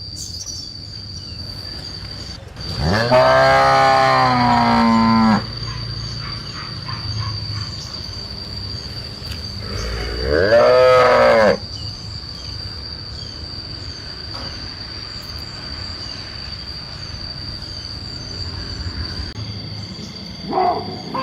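Cow mooing twice: a long low moo lasting about two and a half seconds, then a shorter one about seven seconds later.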